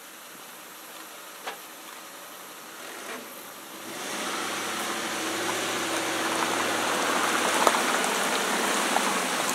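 Pickup truck engine pulling an empty pontoon-boat trailer up the launch ramp out of the lake, with water pouring and splashing off the trailer. It gets louder about four seconds in, as the trailer comes out of the water.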